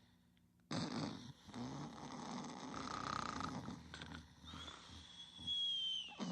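Snoring starts about a second in: rough, rattling breaths with a low buzz. In the second half a high whistle slides slowly downward over the snore for about a second and a half.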